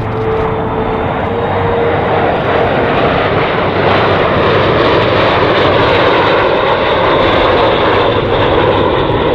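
Jet noise from L-39 Albatros jet trainers flying past in formation: a rushing roar that grows louder over the first few seconds and then stays steady and loud. A thin whine fades out about three seconds in.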